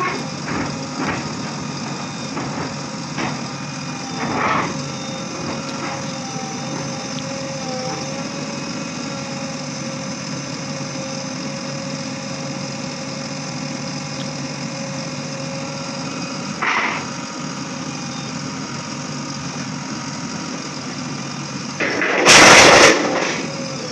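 JCB backhoe loader's diesel engine running steadily while its backhoe arm lifts and lowers a load from a truck. Two short knocks, and near the end a loud, harsh burst of noise about a second long.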